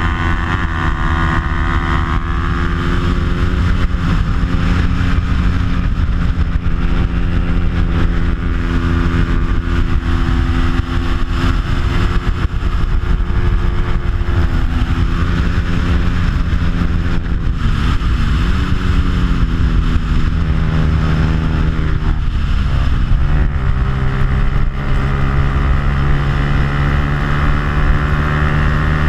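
Bajaj Pulsar 200's single-cylinder four-stroke engine running at high revs under race load, over wind rush. It is a stock motor with only an aftermarket exhaust. The engine note holds fairly steady, dips twice in the last third as the bike slows for corners, and climbs again, then settles lower near the end.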